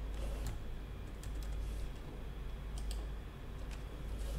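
Irregular keystrokes on a computer keyboard, a few scattered clicks at a time, over a steady low hum.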